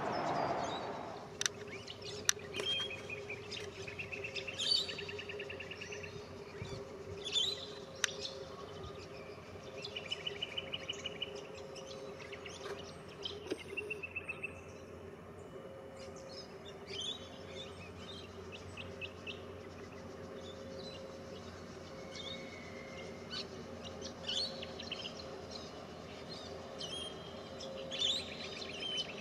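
Birds chirping and trilling, several short repeated trills among them, over a steady low hum from an approaching diesel locomotive hauling a coal train.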